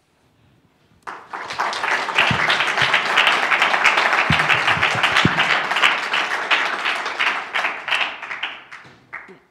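Audience applauding, starting about a second in and dying away shortly before the end.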